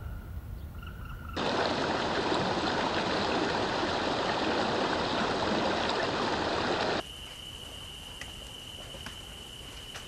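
Shallow stream trickling and splashing over rocks, cutting in abruptly about a second in and cutting off just as suddenly about two-thirds of the way through. After it comes a steady high tone with a few faint ticks.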